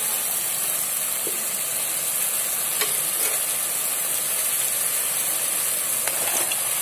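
Spice masala sizzling steadily as it fries in oil in an aluminium pan, with a spatula stirring and scraping against the metal now and then.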